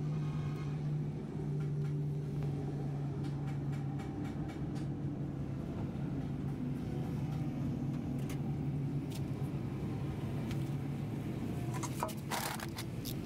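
An engine runs steadily with a low hum. Light clicks come now and then, and a brief louder clatter near the end.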